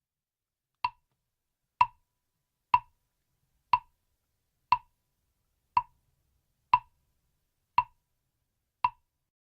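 Mokugyo (Buddhist wooden fish drum) struck with its mallet nine times at a steady pace of about one stroke a second, each a short hollow wooden knock that dies away quickly.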